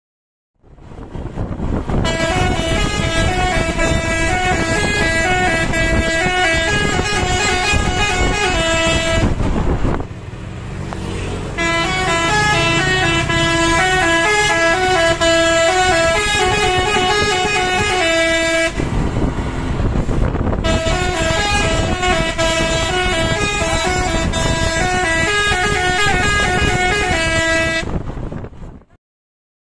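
Indonesian 'telolet basuri' musical bus horn playing a quick stepping melody of several horn tones sounding together, over a rumble of vehicle noise. The tune breaks off briefly twice, about a third of the way in and again a little past halfway, and stops shortly before the end.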